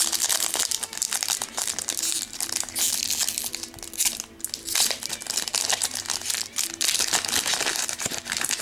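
Foil wrappers of trading card packs crinkling and rustling as packs are opened and handled, with many small crackles and a short lull about halfway through.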